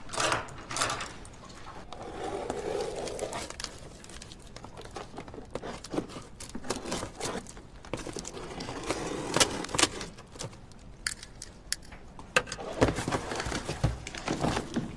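A taped cardboard delivery box being opened: crinkling, scraping and tearing of packing tape and cardboard flaps, with scattered sharp knocks and clicks.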